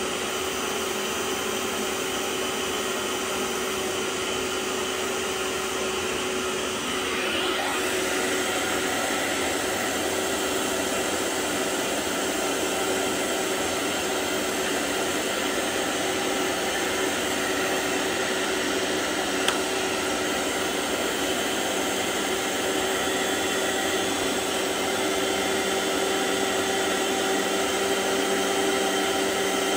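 Vax OnePWR cordless carpet cleaner's suction motor running steadily with a constant whine while extracting liquid from carpet. The sound shifts slightly about seven seconds in, and a single click comes about twenty seconds in.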